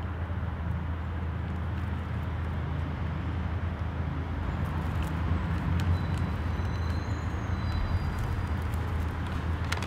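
Steady low rumble of distant road traffic, with a few faint ticks near the end.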